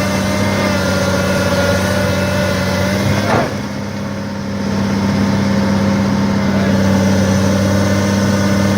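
A heavy machine's engine running steadily under the recovery of a stuck backhoe. Its level dips briefly about three and a half seconds in, then builds back up.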